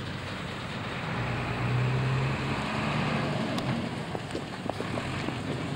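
Car-transporter truck's engine running as it drives off down the street, a steady low drone that swells around two seconds in, over road and wind noise.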